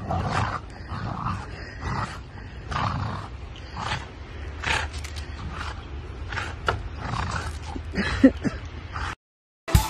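A dog growling and grunting in play as it tugs and carries a snow shovel in its mouth, in rough bursts about once a second over a steady low rumble.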